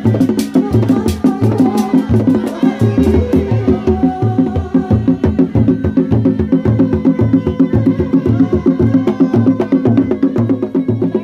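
A reak ensemble of hand-struck dogdog drums plays a steady interlocking rhythm, with deep thumps about two to three times a second. Sharp high clicks come over the first few seconds and then drop away.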